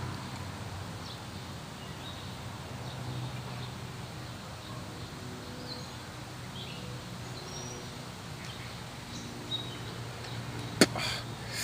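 Outdoor ambience: scattered short bird chirps over a steady low hum. A single sharp click comes near the end.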